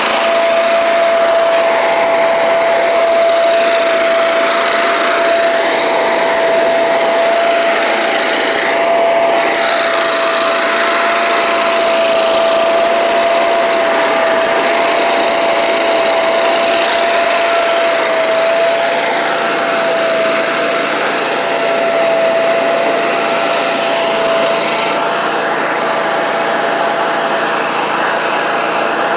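Thermal Arc Raider 10000 Pro engine-driven welder/generator running at a steady speed, with a constant high whine over the engine noise.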